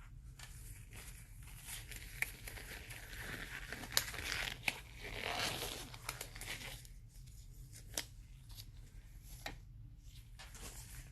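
Paper or plastic packaging being torn and crinkled, loudest a few seconds in, with several sharp clicks and taps. This is the handling of sealed trading-card boxes.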